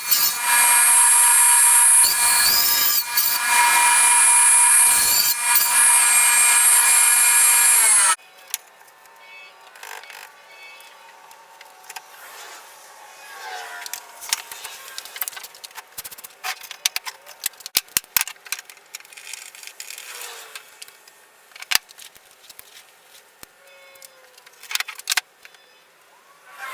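A power tool running and cutting for about eight seconds, then stopping suddenly, followed by quieter scattered clicks and knocks of handling.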